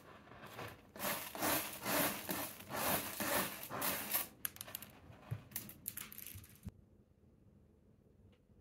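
Scratchy rubbing and crunching in quick strokes for about three and a half seconds, then a few scattered clicks, stopping suddenly.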